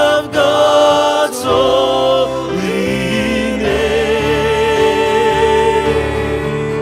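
Worship song: singing over instrumental accompaniment, ending on a long held, wavering note from about halfway through.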